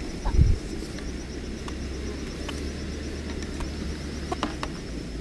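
Outdoor ambience: a steady low rumble under a continuous high insect trill, with a single low thump about half a second in and a few faint clicks.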